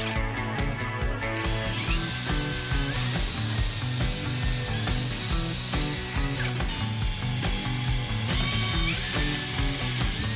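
A power tool running with a high whine that steps up and down in pitch as it speeds up and slows, with rapid clicking, over background music.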